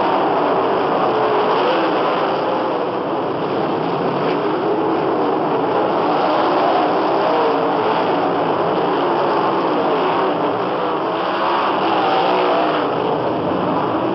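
Sprint car engines racing on a dirt oval, their pitch rising and falling as the cars go through the turns.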